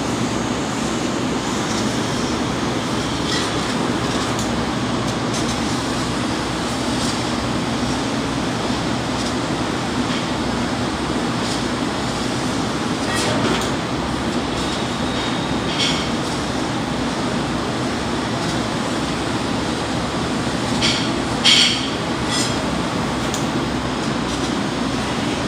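CNC laser cutting machine running as it cuts 3 mm mild steel plate: a steady rushing noise, with a few short sharp crackles, the loudest pair about 21 seconds in.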